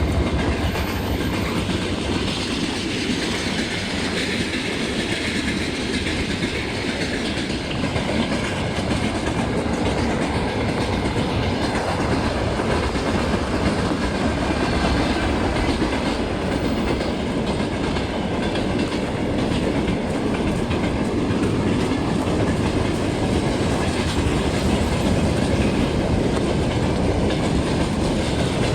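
Freight train wagons rolling past at close range across a railway bridge: a steady loud rumble and rattle of steel wheels on the rails, with a dense run of rapid clicks.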